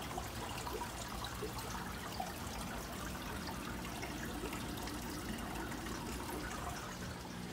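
Steady trickling and bubbling of aquarium filtration water, with a faint low hum underneath.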